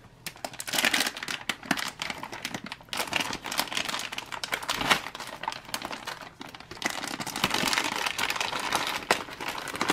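Plastic packaging of a South Korean field ration crinkling as it is gripped, squeezed and folded by hand, with many sharp crackles; it grows louder and denser about seven seconds in.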